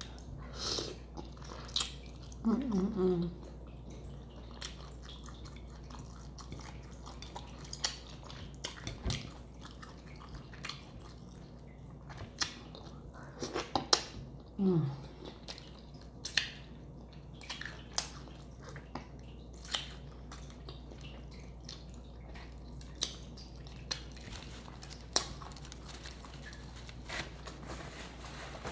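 Close-miked chewing and biting of seafood-boil food, with wet mouth clicks and smacks scattered throughout. Twice, a brief low murmur falls in pitch.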